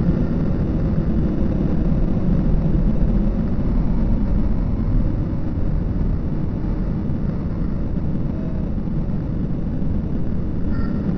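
Steady, deep rumble of city street traffic, with no single vehicle standing out.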